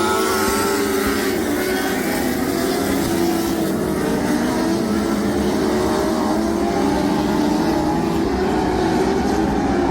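Several lightning sprint car engines running together on the track, their overlapping pitches rising and falling as the cars circle.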